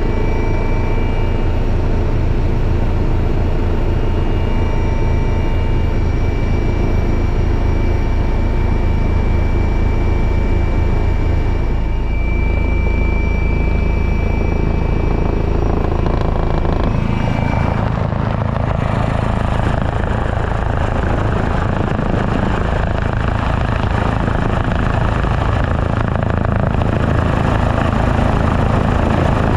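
Helicopter engine and rotor noise heard from inside the cabin in flight: a steady low rotor beat with turbine whine tones above it. About two-thirds of the way through, the sound turns rougher and more rushing while the beat continues.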